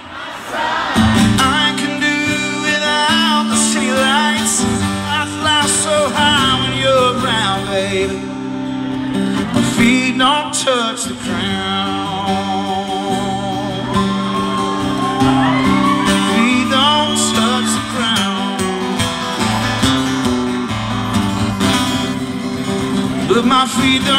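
Live acoustic guitar strumming chords, with a voice singing long, wavering melodic lines over it.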